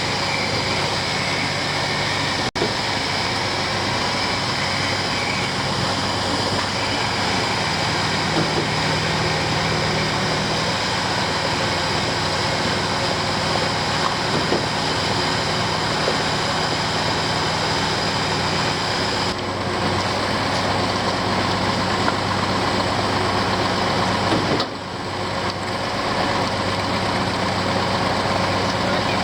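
Concrete pump truck's engine running steadily, with a low steady hum, during a concrete pour. There is a momentary dropout about two and a half seconds in.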